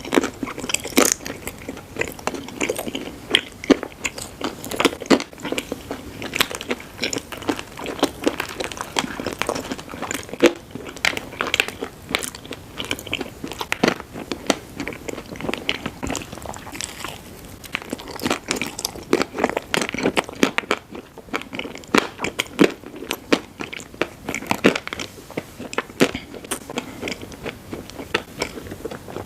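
Close-miked eating sounds: a person biting and chewing sweets, with many sharp crisp crunches and clicks following one another.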